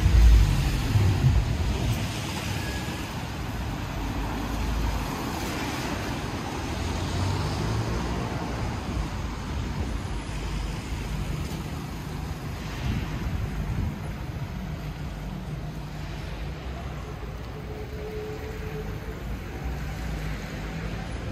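City street traffic: a steady noise of cars and other road vehicles, with a louder low rumble from a vehicle passing close in the first couple of seconds.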